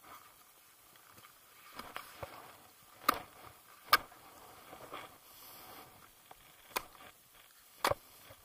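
Several sharp clicks and knocks over faint rustling, about three and four seconds in and again near the end: ski gear and clothing being handled right against the microphone.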